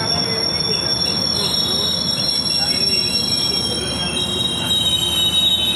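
A passenger train pulling slowly into the station alongside, its wheels squealing in high steady tones as it brakes, over the rumble of the carriages rolling by. A louder squeal comes in about four seconds in.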